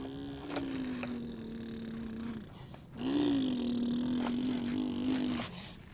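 Small electric motor of a radio-controlled construction model running with a steady whine. It cuts off after about two and a half seconds, then starts again with a brief rise in pitch and runs for another two and a half seconds before stopping.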